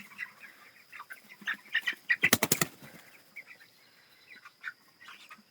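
Meat chickens cheeping, with a short burst of wing flapping a little over two seconds in.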